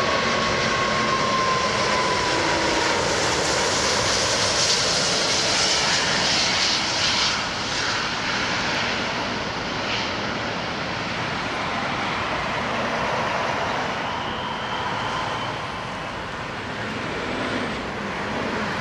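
Airbus A340-600's four Rolls-Royce Trent 500 turbofans on final approach, passing low overhead: a steady jet roar with a whining tone that drops in pitch over the first few seconds as the airliner goes by. After that comes a rumble that slowly fades as it descends toward the runway.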